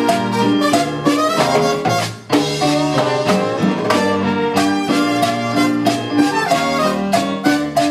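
Live salsa band playing: keyboard, bass guitar, congas and timbales with a steady dance beat. The music drops away briefly about two seconds in, then the band comes back in together.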